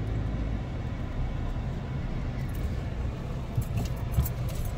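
Steady low hum of an idling car engine heard from inside the cabin, with a few light clicks and rattles in the second half.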